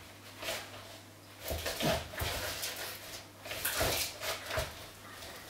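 Plate dumbbells rolling and bumping on a wooden floor under a person's feet as he shifts his weight on them, in irregular bursts with a few short voice-like noises among them.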